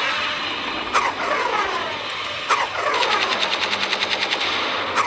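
Edited-in action sound effects: a few sudden hits, each trailing off in falling sweeps, then from about three seconds in a rapid rattle of machine-gun fire, about ten shots a second.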